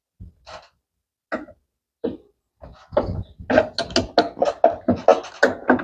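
Pliers forcing a stubborn retaining clip loose under a Brastemp BWK 14 washer tub: a few separate clicks and knocks, then a quick, irregular run of short knocks and rattles of metal on plastic, several a second.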